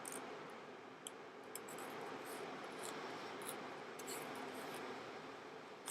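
Faint room hiss with a few soft ticks and light rustles, as of small objects being handled.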